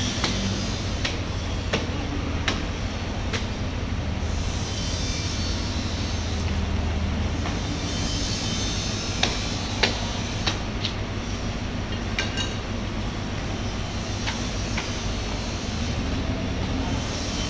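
Large knife cutting into a bluefin tuna's head and gill area, giving scattered sharp knocks and clicks over a steady low background rumble.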